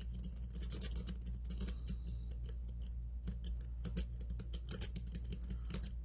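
Steel lock pick raking in and out of the keyway of a Master Lock Magnum M930 padlock: rapid, irregular metallic clicks and scrapes as it flicks over the pin stack. The lock stays shut.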